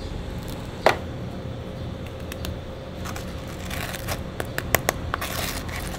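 Toasted baguette slice scraped through sauce in a metal tray, a scraping, crackly noise with several light clicks in the second half. A single sharp knock about a second in, over a steady low hum.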